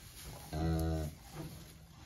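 A cow that has just calved gives one short, low moo, about half a second in, the soft call a mother cow makes to her newborn calf.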